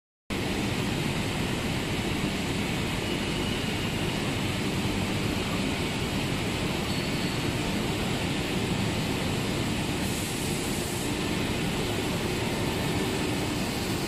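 Steady machine noise of a single-core PVC cable extrusion line running: a constant even rush with a faint high whine.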